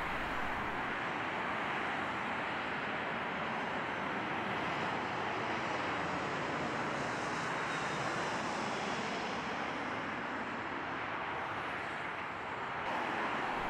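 Steady distant roar of small Airbus twin-jet airliners' engines on landing approach.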